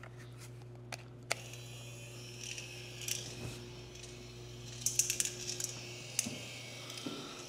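A USB connector clicking into place about a second in. Then light, scattered clicking and rattling as the steel balls run through a tiny 3D-printed marble machine, over a steady low hum that stops about six seconds in.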